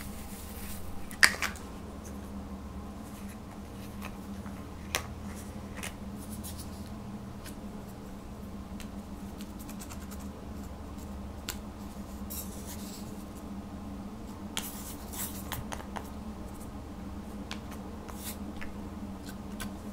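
Plastic makeup compacts being handled and a plastic spatula scraping pressed pink blush out of its pan: scattered sharp clicks, the loudest about a second in, and short scratchy scrapes over a steady low hum.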